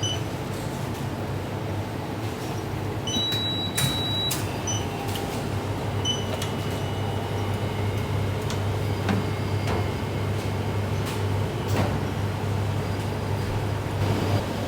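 Steady low mechanical hum with an even background noise, broken by a few clicks and short electronic beeps, including one beep held for about a second a little over three seconds in.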